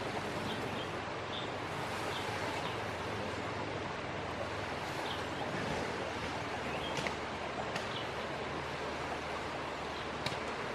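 Outdoor ambience: a steady hiss, with faint short chirps now and then and a few sharp clicks, the clearest near the end.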